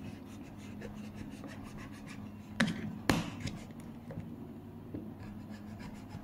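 Scissors scraping and sawing at the seal sticker along the edge of a cardboard phone box. There are many small scratchy ticks, and two sharper clicks come about two and a half and three seconds in.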